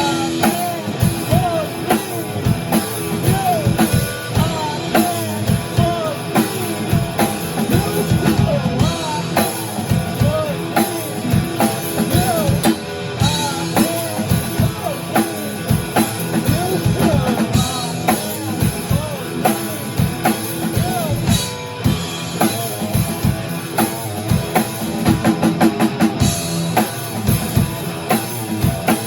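Rock band playing a song: a drum kit hitting steadily throughout, with guitar and a melody of sliding notes above it.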